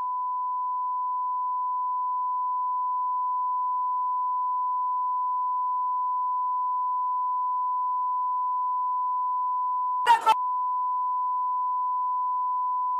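Broadcast censor bleep: one steady, unbroken single-pitch beep tone masking the soundtrack, interrupted once about ten seconds in by a split-second of unbleeped sound.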